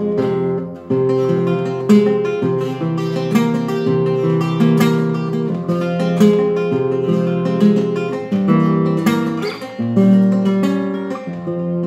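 Solo classical guitar playing the instrumental introduction to a milonga, with bass notes and chords in a steady rhythm.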